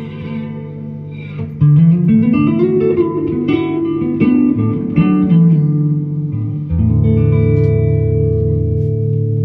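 Electric guitar played with a glass Coricidin-bottle slide through an amplifier: after a quiet swell, slide notes glide up in pitch and move through a melody, then a low chord rings on near the end.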